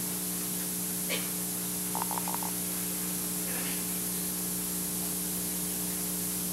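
Steady hiss and electrical hum of an old video recording, with a few faint short sounds from the stage or audience; a quick run of four small pulses comes about two seconds in.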